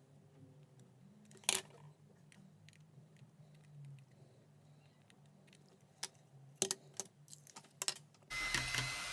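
Light clicks and taps of small parts and tools being handled, then, near the end, a small electric drill suddenly starts and runs steadily with a faint whine, drilling a wire hole in a plastic RC transmitter housing.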